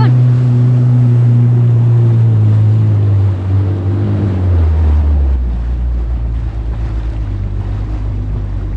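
Kawasaki STX 160X jet ski's four-cylinder engine running steadily at speed. About three to five seconds in its note falls steadily, and it settles into a lower, pulsing run.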